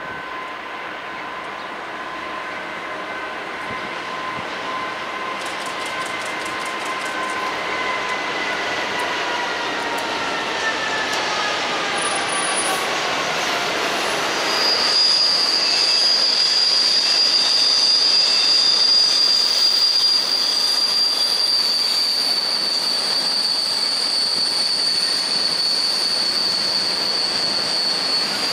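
Diesel locomotive hauling a freight train past: its engine note holds steady and then drops in pitch as it goes by about halfway through. From then on the wagons roll past with a steady, high-pitched wheel squeal.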